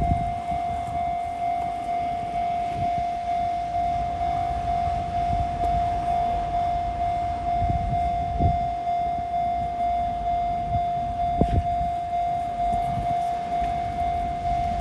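Japanese level-crossing warning bell on the Enoden line ringing steadily, one repeated electronic ding at the same pitch, evenly spaced.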